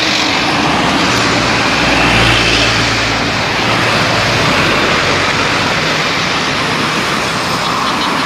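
Bus engine and road noise, loud and steady, with a low engine hum under a dense rushing noise.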